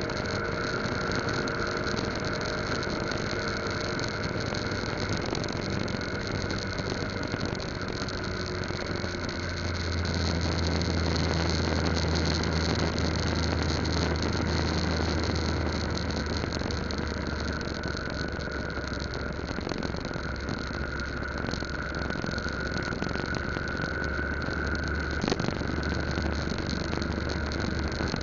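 Yamaha Lagenda 115Z underbone motorcycle's single-cylinder four-stroke engine running steadily while riding, mixed with wind and road noise. The low engine note grows louder for several seconds about ten seconds in.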